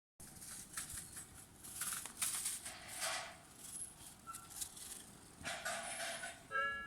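Irregular outdoor rustling and hissing noise, then near the end a Tobu railway level-crossing warning bell starts up: the Tobu type B (Nikko type) electronic bell chiming about twice a second, its first tone sounding off.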